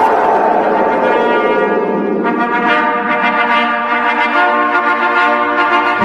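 Background music: brass instruments, trombones and trumpets, playing long held chords that shift about two seconds in.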